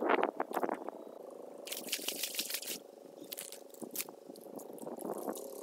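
Muddy pool water being scooped and flung out by hand: several short bursts of splashing and sloshing, over a steady faint hum.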